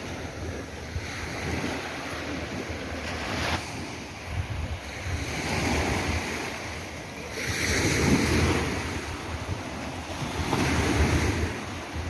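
Sea waves washing in and breaking, the surf rising and falling in several surges, the loudest about two-thirds of the way in, with wind buffeting the microphone.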